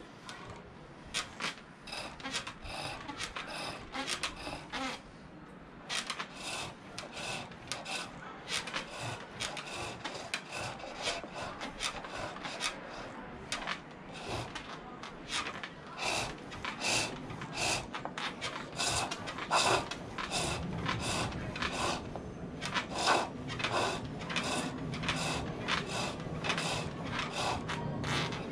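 Green silver birch being turned on a foot-powered pole lathe: a hand tool shaves the spinning spurtle in a quick series of short scraping cuts, several a second, with a brief let-up about five seconds in.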